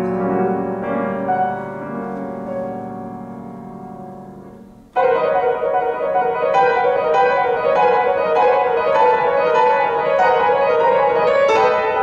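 Yamaha grand piano played solo: held chords ring and slowly fade for about five seconds, then break off into a sudden loud passage of quick repeated notes in the middle and upper range.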